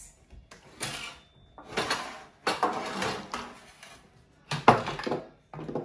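A utensil scraping and knocking against a bowl and baking dish in four or five short noisy strokes, as chocolate cake batter is scraped out into the greased pan.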